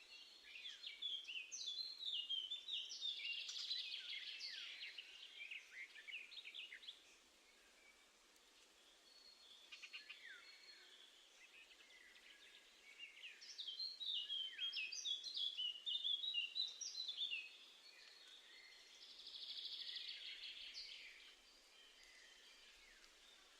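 Garden songbird song: bursts of quick high twittering notes in three phrases, the first two lasting several seconds and a shorter one near the end, with quieter pauses between.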